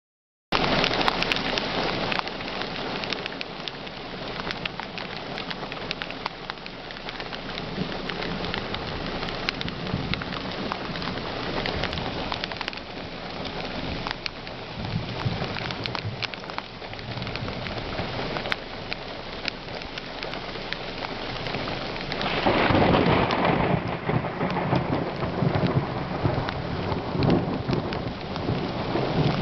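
Heavy rain with thunder. A steady downpour hiss, flecked with crackles, starts suddenly, and a louder rumble of thunder swells up about three quarters of the way through.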